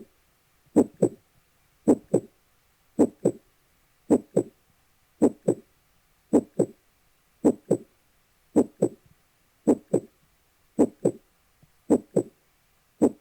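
Heartbeat sound played by a sleep sound machine: a steady double thump, lub-dub, a little slower than once a second, about a dozen beats in all.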